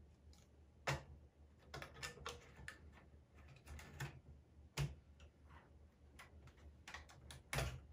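Irregular clicks and light knocks of hands handling the parts of a Lenovo System x3550 M5 rack server, with louder knocks about a second in, near five seconds and near the end, over a faint steady low hum.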